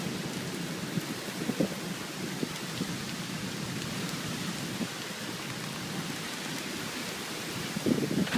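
Steady rain falling during a thunderstorm: an even hiss with scattered small drip-like ticks. A louder burst comes near the end.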